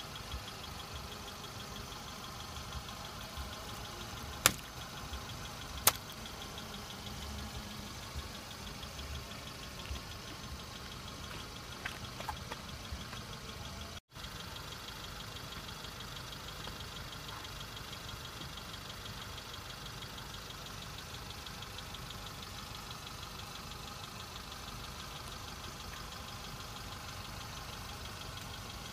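Car engine idling steadily, with two loud, sharp pops about a second and a half apart as the front tyre bursts an inflated long balloon.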